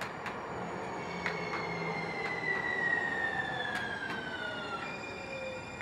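A train rolling slowly past with a high wheel squeal that glides slowly down in pitch and then switches to a different steady squeal near the end. Over it come pairs of sharp clicks as the wheels of each truck cross a rail joint.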